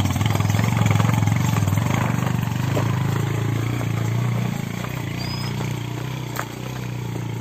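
Motorcycle engine running at low speed on a rough dirt track, a steady low drone that grows fainter after about four seconds.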